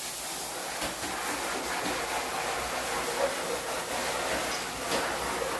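Electric air pump running with a steady rushing hiss as it inflates a baby swimming pool.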